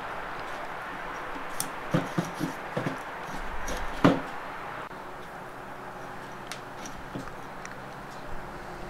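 Light handling noises: a few soft taps and clicks as a rubber lip seal is worked onto an automatic-transmission clutch piston by hand, over a steady background hiss. The sharpest click comes about four seconds in.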